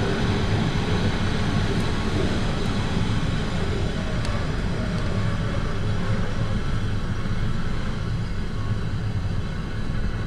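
SU42 diesel locomotive running with a steady low rumble as the train rolls slowly along, with wheels on the rails, heard from inside the cab.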